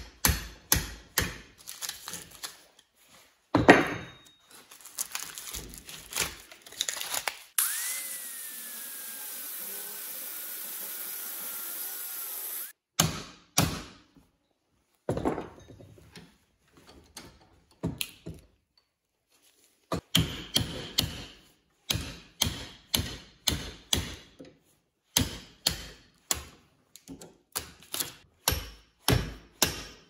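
Hammer blows on a microwave oven transformer clamped in a steel bench vise, knocking out its wooden shims and copper winding, in runs of about three sharp strikes a second. In the middle the strikes stop for about five seconds of steady hiss with a faint falling whistle.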